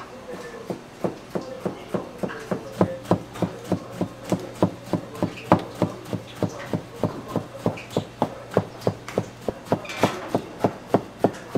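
Large kitchen knife rapidly slicing a rolled sheet of thin egg crepe into strands, each stroke knocking on a plastic cutting board: a steady rhythm of about three sharp knocks a second that starts about a second in.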